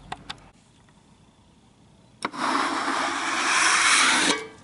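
Water being put onto a freshly sawn walnut slab from a container: a sharp click about two seconds in, then a steady rush of water for about two seconds that cuts off just before the end. A couple of light clicks of handling at the start.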